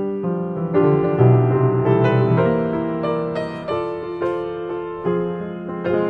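Solo piano music: chords under a melody line, each note struck and left to ring and fade.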